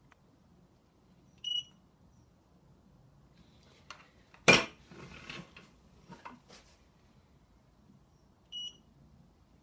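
OCS-X digital crane scale giving short electronic beeps, twice, about a second and a half in and again near the end, as its buttons are pressed. In between comes a sharp knock, the loudest sound, and some lighter clatter as the heavy scale and its steel shackle are handled.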